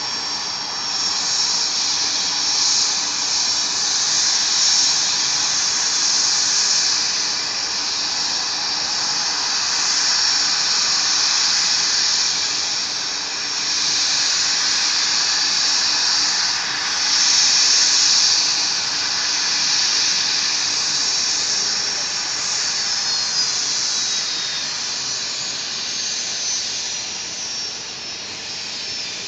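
Bombardier CRJ200's GE CF34 turbofan engines running: a loud, shrill high-pitched whine over a steady rush that swells and fades a few times. Toward the end, a few high whine tones slide downward in pitch.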